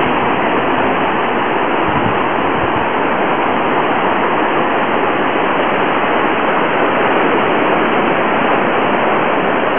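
Seaside ambience: a steady, even rushing noise with no breaks.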